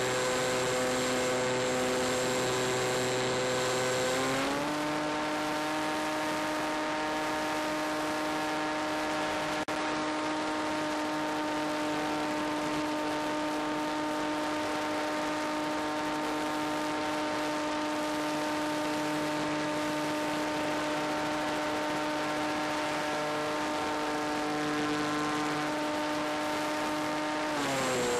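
Skywalker RC plane's electric motor and propeller whining steadily over a hiss of rushing air. The pitch steps up about four seconds in, holds steady, and drops back near the end as the throttle changes.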